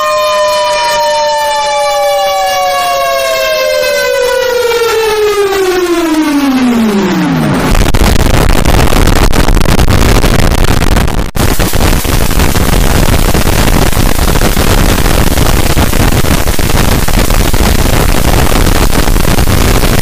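Mock emergency alert system alarm played in reverse: two siren-like tones slide steadily downward in pitch together for about seven and a half seconds, then cut to loud harsh static, with a brief dropout about eleven seconds in.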